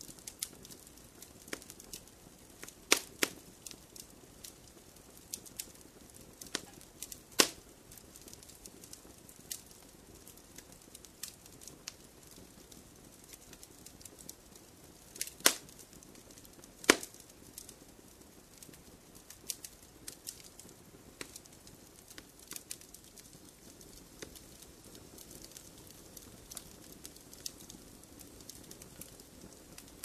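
Fireplace fire crackling: scattered small snaps over a faint low rustle, with a few louder pops, two of them close together about three seconds in and two more around the middle.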